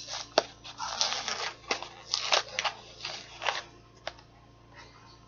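Plastic mochi packaging being crinkled and pulled at by hand, a run of short crackling rustles and sharp clicks as the package resists opening.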